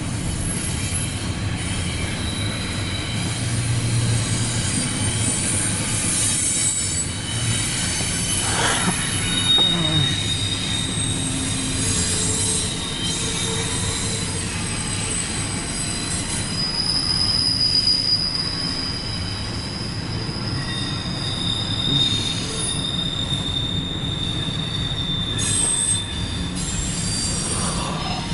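CSX intermodal freight train rolling past, its wheels squealing in long high tones that come and go over the steady rumble of the cars.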